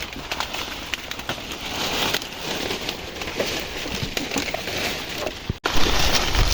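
Dry maize leaves and husks rustling and crackling as cobs are picked by hand, with many small crackles. About five and a half seconds in, the sound breaks off and a louder, steady low rumble follows.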